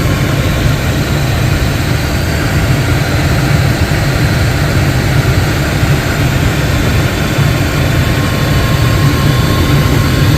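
Gas furnace running with its burner lit: a steady, loud rumble that does not falter or cut out. The burner stays lit with its newly replaced flame sensor and control board, rather than shutting off.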